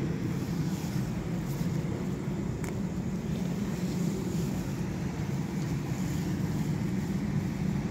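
Steady low outdoor rumble with no change in level, and a faint click about two and a half seconds in.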